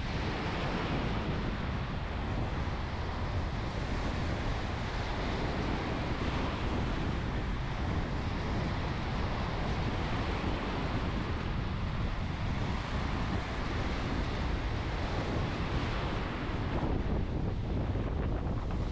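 Steady wind buffeting the microphone over the rush of waves, cutting off abruptly at the end.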